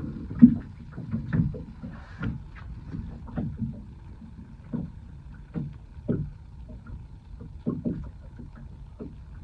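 Water slapping and knocking against the hull of a small fishing boat in a light chop: irregular low slaps and thumps, about one a second, the sharpest about half a second in.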